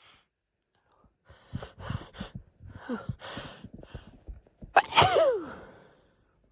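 A woman's hitching, gasping in-breaths, several short catches in a row, building to one loud sneeze about five seconds in, its voiced cry falling steeply in pitch as it trails off.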